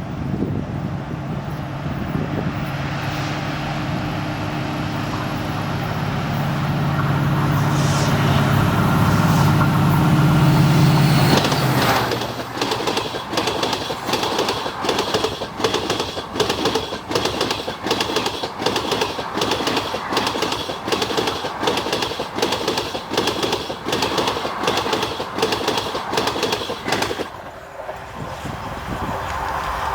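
WDP4B diesel locomotive approaching at speed, its engine growing louder until it passes. Then the ICF coaches' wheels clang hard and rhythmically over the rail joints on the bridge, about two strikes a second. The clanging stops abruptly near the end as the last coach passes.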